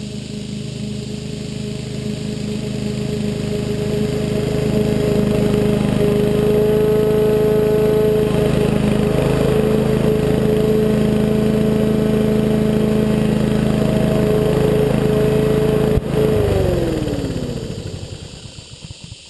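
Rover OHV 910 196cc single-cylinder lawn mower engine running at its fixed throttle while mowing, growing louder as the mower comes closer over the first few seconds. About three seconds before the end there is a click, then the engine winds down with falling pitch and stops, which is the engine brake cutting it when the handle bar is let go.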